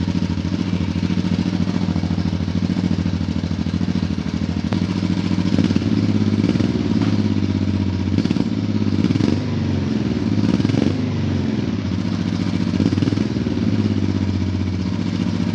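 Freshly rebuilt Honda Transalp V-twin motorcycle engine running through its new Delkevic aftermarket exhaust: a steady idle, with several throttle blips that raise and drop the revs in the middle.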